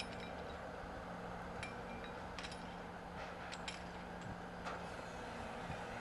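Steady low machinery hum of a work site with a few scattered, light metallic clinks, some ringing briefly.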